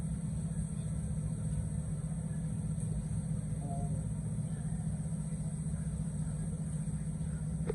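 Anex microwave oven running mid-bake, giving a steady low hum.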